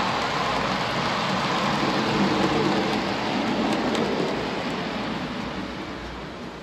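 HO scale Trans Europ Express model train running past on the track: a steady rushing rumble of wheels on rails and motor that fades after about four and a half seconds as the train goes by.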